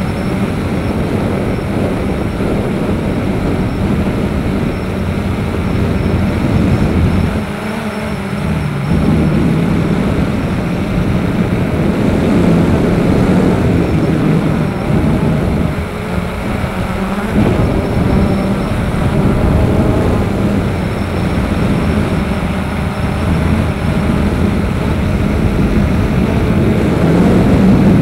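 A camera drone's motors and propellers whirring steadily, heard from the camera on board, with rushing noise over the top. The motor note dips briefly twice.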